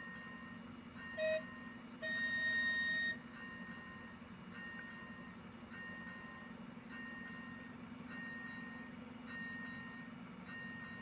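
Level-crossing warning signal sounding its electronic tone over and over, about once a second, as the crossing lights flash for an approaching train. About a second in, a short horn toot comes from the approaching passenger train, followed by a louder one-second horn blast at about two seconds.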